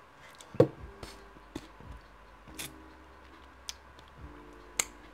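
Mouth sounds of a person chewing a bite of a sub sandwich: a few sharp smacks and clicks, the loudest about half a second in, with soft closed-mouth hums between them.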